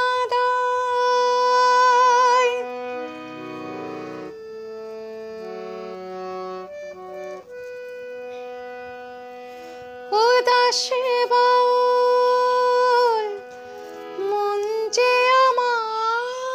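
A woman singing a Bengali song in long, wavering held notes over instrumental accompaniment. The voice stops for several seconds in the middle, leaving the accompaniment playing alone, then returns with more long held notes.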